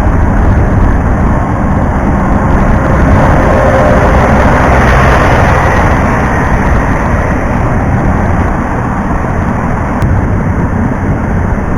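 Loud, steady road noise from riding a motorcycle in traffic, picked up by an action camera's external mic: a rushing wind-and-road haze heaviest in the low end, with engine and traffic underneath.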